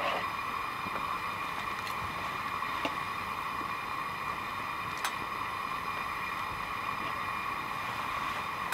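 FireCan propane fire pit burning with a steady gas-flame hiss, with a few faint clicks of a fork against a plate.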